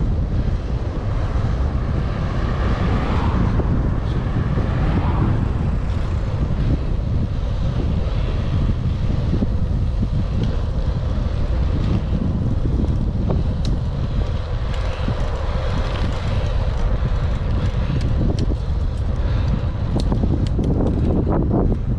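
Wind buffeting a helmet-mounted camera microphone on a moving bicycle: a loud, steady low rumble, with scattered small clicks in the second half.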